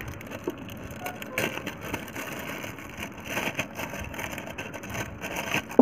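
Clear plastic zip-lock bag crinkling and rustling in the hands as it is opened, with irregular crackles and a sharp click near the end.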